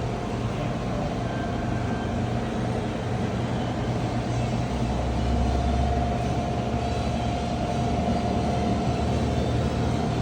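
Bridgeport vertical milling machine running: a steady low motor hum with a thin, even whine over it, growing slightly louder around the middle.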